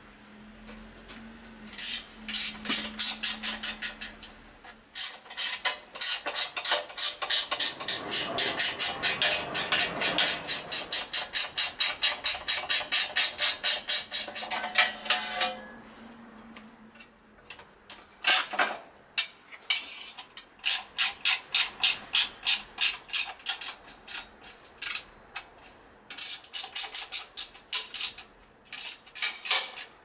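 Ratchet wrench clicking in long runs of rapid, even clicks with short pauses between, as the front mudguard's bolts are undone and done up on the motorcycle's fork legs.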